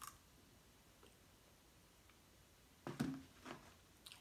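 Mostly near silence while a person eats: a light click near the start, then two short mouth sounds of chewing about three seconds in.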